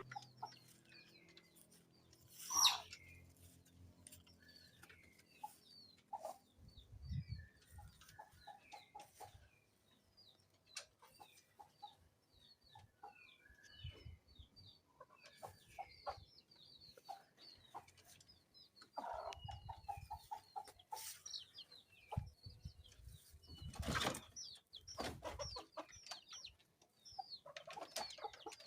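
Free-range village chickens clucking faintly, with many short, high peeping calls throughout. There are two louder rustling bursts, about two and a half seconds in and again near the end.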